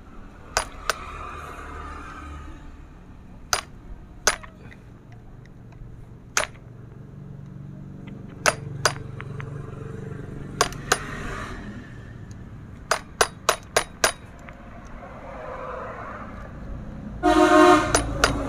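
Sharp metallic clinks and taps of tools and metal parts, a dozen or so spread out with a quick run of several in the middle, while the cylinder and piston are taken off a Stihl MS 651 chainsaw. Near the end a loud, steady pitched tone, horn-like, sounds for about a second.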